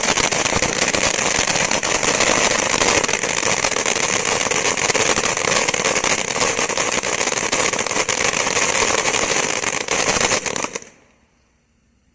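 Bright Star Watermelon Ninja fountain firework spraying: a loud steady hiss thick with crackling that dies out about eleven seconds in.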